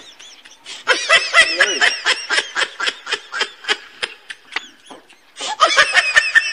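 Laughter: a long run of quick, high-pitched 'ha-ha' pulses starting about a second in, then a second burst near the end.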